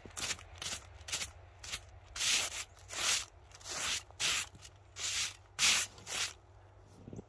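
Broom sweeping snow out of a small-gauge track switch, brushing over the rails and ties in quick strokes, about two a second. The strokes stop about a second before the end.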